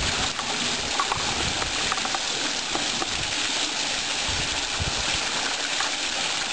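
Water from a rock sculpture fountain falling over the stones and pouring from a statue's pot into the basin: a steady splashing hiss.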